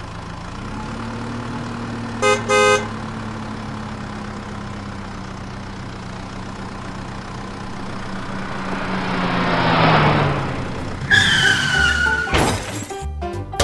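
Truck engine sound effect running steadily, swelling louder about ten seconds in and then fading, with two short horn honks about two seconds in. A brief high tone follows near the end.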